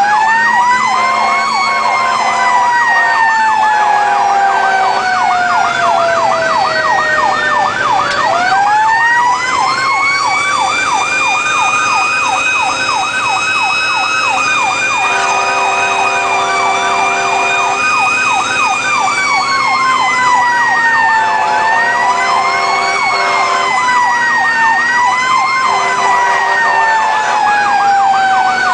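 Fire engine sirens heard from inside the cab: a fast electronic yelp repeating several times a second, over a slower wail that winds up, holds and slowly winds down, rising again about eight seconds in and twice more near the end. Several steady horn blasts, each one to three seconds long, sound over the sirens.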